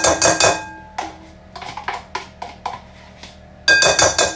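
Kitchen utensils knocking and clinking against a mixing bowl: a rapid flurry of ringing clinks, scattered lighter knocks, then another quick flurry near the end.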